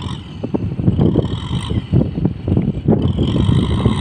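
Kubota M6040SU tractor's diesel engine running as the tractor works its way across the field.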